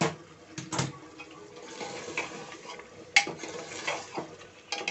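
Steel ladle stirring a thin spinach-and-mutton curry in an aluminium pressure-cooker pot, scraping and knocking against the pot's sides. There are several sharp metal clinks; the loudest comes about three seconds in.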